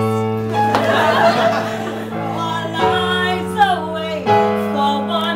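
Electric keyboard playing sustained chords, changing chord twice, with a burst of audience laughter about a second in.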